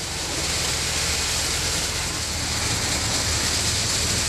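Tractor-mounted almond tree shaker running: a steady engine drone with a loud, even hiss over it as the tree is shaken.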